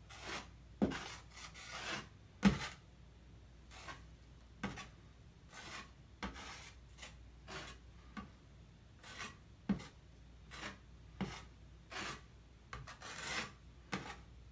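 Wide metal drywall knife scraping and smoothing spackling paste over a drywall patch in repeated short strokes, with a few sharper clicks of the blade against the wall.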